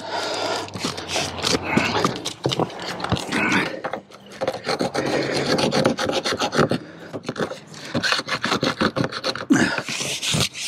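Hand scraper rasping along the metal frame of a plexiglass dome skylight in rough, repeated strokes with brief pauses, stripping old caulking and tar.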